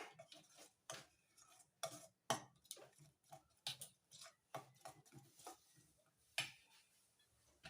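A spoon stirring in a bowl, with irregular light clicks and scrapes against the bowl's side.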